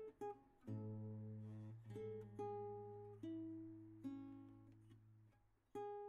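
Background music: plucked-string notes, each struck sharply and fading, over a held low bass note, with short breaks about half a second in and near the end.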